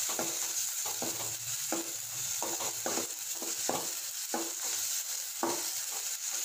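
Small onions and ginger-garlic paste sizzling in sesame oil in a metal kadai, stirred with a metal ladle that scrapes and knocks against the pan about once or twice a second. This is the sautéing stage, cooking off the raw smell of the ginger-garlic paste.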